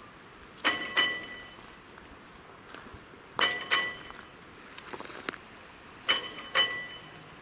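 Level-crossing warning bell ringing with the barriers down, two sharp metallic strikes at a time, each pair about two and a half seconds apart, three pairs in all.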